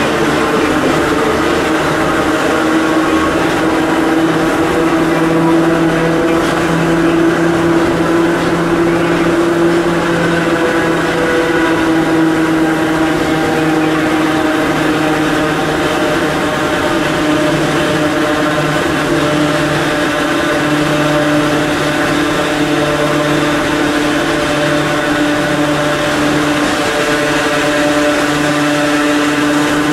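Hakone Tozan Railway Moha 1-class electric car Moha 107 running on the line, heard from inside the car: the steady hum and whine of its nose-suspended (tsurikake) traction motors and gearing over wheel and track rumble. Several tones in the whine drift slowly in pitch.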